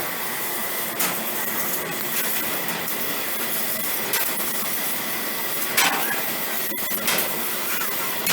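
CNC laser cutting machine running: a steady hiss and whir with a faint high tone, broken by a few sharp clicks.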